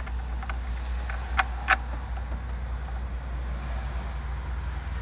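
A few light clicks from a hand starting steel bolts into the engine's intake, two of them sharper about a second and a half in, over a steady low hum.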